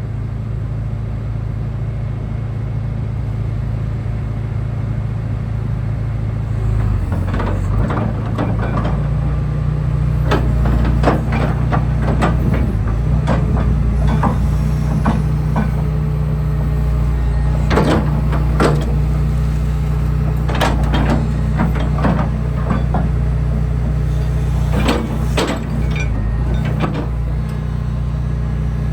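John Deere 245G LC excavator's Isuzu diesel engine running steadily, its pitch shifting about seven seconds in as the machine starts working. From then on, repeated sharp metal clanks and knocks ring out over the engine.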